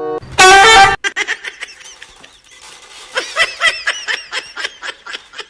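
A loud held tone lasting under a second near the start, then a person laughing in fits of short, breathy, squeaky bursts.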